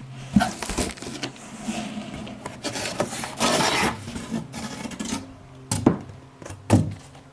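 Packaging being handled as the exhaust box is opened: a run of rubbing, scraping and rustling, with two sharp thuds near the end.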